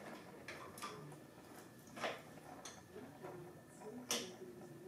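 Faint, irregular small clicks and taps of a plastic handlebar switch housing being handled and fitted into place, about five in all, the sharpest about two and four seconds in.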